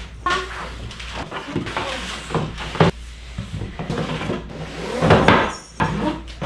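White IKEA KALLAX flat-pack shelf panels being pulled from their cardboard box and set down: cardboard scraping and rustling, with several knocks of the boards against each other and the box.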